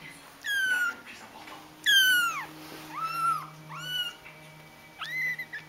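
Very young kittens mewing: five short, high-pitched mews, some falling and some arching in pitch, with the second one the loudest.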